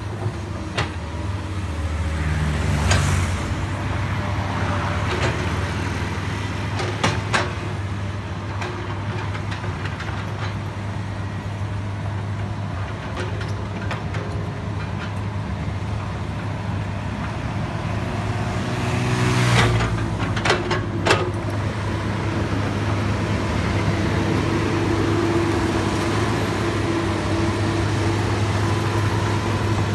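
Heavy diesel earthmoving machinery, an excavator working with dump trucks, running steadily with a constant low engine drone. Sharp metallic knocks come about 3 and 7 seconds in, and a short cluster of them comes about 20 seconds in.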